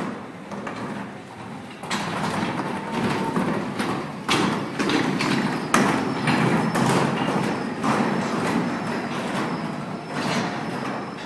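A large plastic wheelie bin towed behind a small electric tug, its wheels and body rattling over a concrete floor with many irregular knocks and thuds, louder from about two seconds in.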